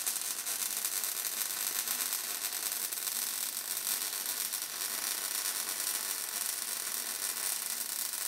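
MIG welder arc on steel crackling steadily, a fast, dense sputter without a break while a weld bead is run.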